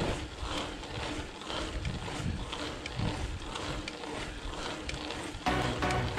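Mountain bike riding slowly uphill on a rough gravel track: tyre-on-gravel noise with an uneven rumble on the camera microphone. Background music with a steady beat comes in near the end.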